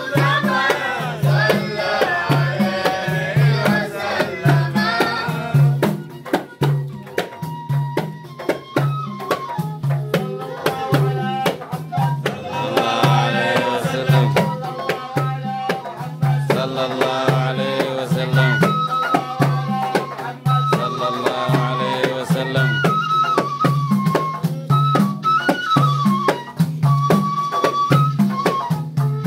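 Devotional mawlid praise singing by a group of voices over a steady, repeating hand-drum beat.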